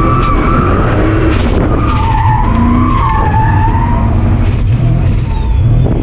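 Turbocharged V8 Dodge pickup drifting: the engine runs hard under load while the tyres squeal, the squeal wavering in pitch. A thin high whine rises briefly, then falls away slowly through the rest.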